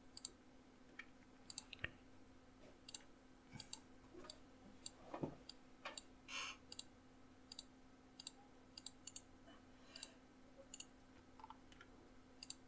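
Computer mouse buttons clicking faintly and irregularly, many clicks in a row, over a faint steady electrical hum.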